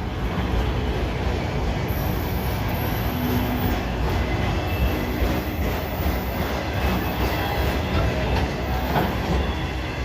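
Freight train cars, autoracks at the rear of a manifest freight, rolling past: a steady rumble of steel wheels on rail with clacks over the joints and an on-and-off high-pitched wheel squeal.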